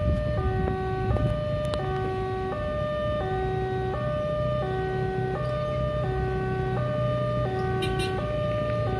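Indonesian railway level-crossing warning alarm of the 'Alarm Indonesia' type. It plays a steady two-note chime that swaps between a lower and a higher note about every 0.7 s, repeating without a break, and it signals that the barriers are down for an approaching train.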